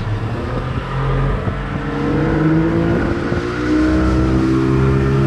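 Boat's outboard motor throttled up: its pitch climbs for about three seconds as the boat gets under way, then holds steady at speed.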